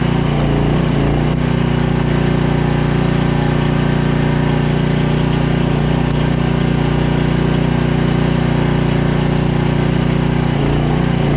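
Mini skid steer's small 15-horsepower engine running steadily, its pitch wavering briefly near the start and again near the end.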